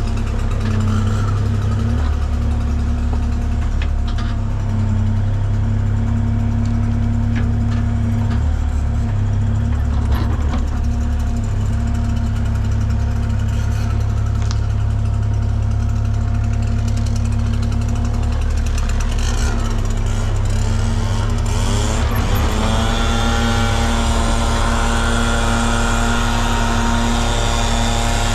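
A machine engine runs steadily with a low drone. About three-quarters of the way through, a second motor winds up in pitch and settles into a steady higher whine.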